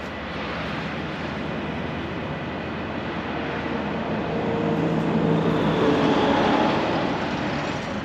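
Heavy-duty NRC rotator wrecker's diesel engine running under load to drive its hydraulic winches and boom, with a droning whine that swells about four to seven seconds in as the trailer is pulled.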